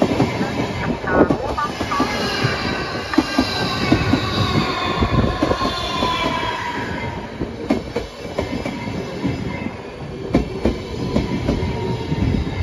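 Lastochka (Siemens Desiro RUS) electric multiple unit rolling past close by, its wheels clicking over rail joints under a steady rumble. A whine runs through it and falls in pitch over several seconds.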